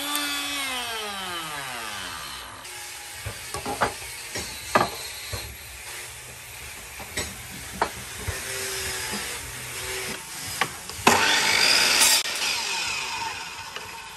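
Handheld electric router winding down after being switched off, its whine falling away over the first two seconds. Then loose wooden boards knock and clatter as they are handled, and a loud rush of about a second from a miter saw comes near the end.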